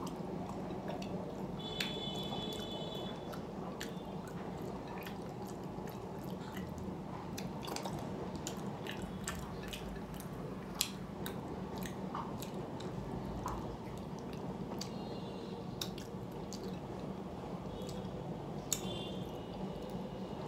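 Close-up chewing and wet mouth sounds of someone eating rice and fish, with scattered small clicks and smacks over a steady low background hum.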